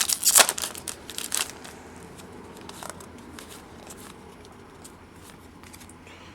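Trading card pack wrapper crinkling and tearing for about a second and a half, then faint clicks and rustles of cards being handled.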